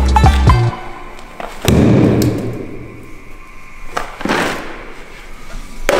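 Music with a heavy beat cuts off abruptly under a second in. Then a sledgehammer hits a concrete wall panel twice, about two and a half seconds apart, each blow a heavy thud that echoes in a large hall.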